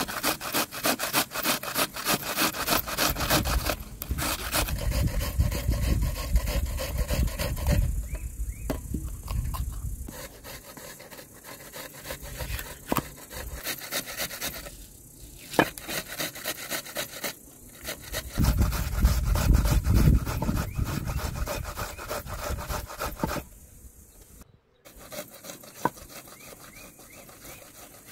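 Knives chopping vegetables by hand: rapid short strokes mincing red onion on a metal tray, then a cleaver slicing green pepper on a wooden cutting board, a series of knocks of the blade on the board with scraping in between.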